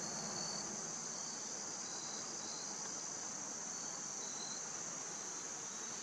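Steady high-pitched insect chorus, a continuous trill of the kind crickets make in autumn grass, with a few brief fainter notes.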